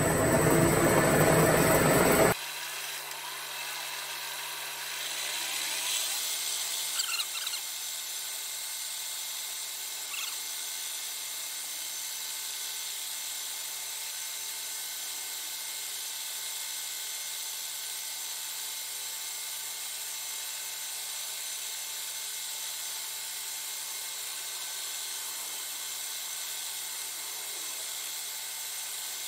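Milling machine spindle running in high gear as a 1/16-inch end mill plunge-cuts a slot in a small metal trim piece. A louder rush for the first two seconds drops off abruptly to a steady whine. The cutter squeals briefly about five to seven seconds in.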